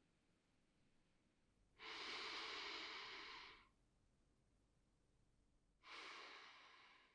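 A man's faint breathing: one long breath lasting nearly two seconds from about two seconds in, and a shorter breath near the end, with near silence around them.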